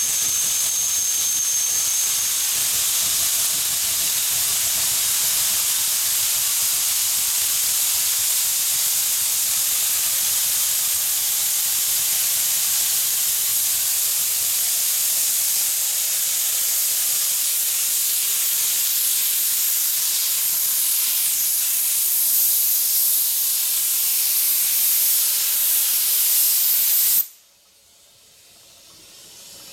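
Geared Shay steam locomotive working up a grade with a loud, steady hiss of steam. The sound cuts off abruptly about three seconds before the end, then slowly fades back in.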